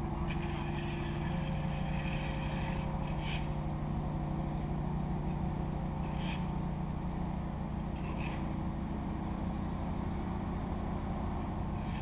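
Car ferry's diesel engines droning steadily as the ship pulls away from its berth through drift ice. A few brief higher-pitched sounds come through about three, six and eight seconds in.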